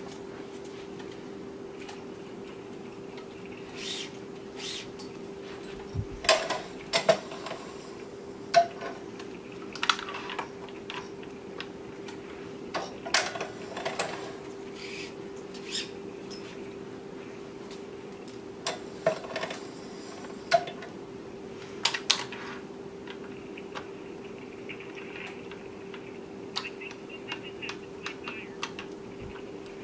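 Irregular metallic clicks and clatter from a tennis racquet stringing machine as string is pulled, tensioned and clamped, over a steady hum.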